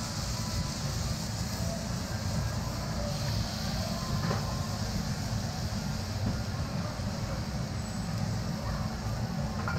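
Steady hiss of okonomiyaki sizzling on a hot iron griddle, over a constant low rumble from the griddle's burners.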